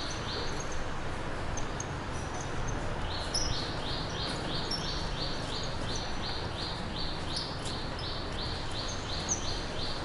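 A bird calling in a fast, even series of short chirps, about three a second, over a steady low background rumble of outdoor noise. The chirping pauses for a couple of seconds shortly after the start, then resumes. A few fainter, higher chirps come and go.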